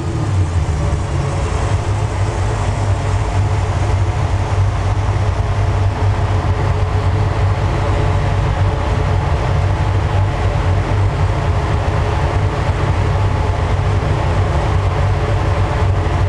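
1989 Porsche 911 Carrera's air-cooled flat-six, breathing through a twin-exit exhaust, running steadily at low revs on the dyno once a pull has wound down. It makes an even, deep hum.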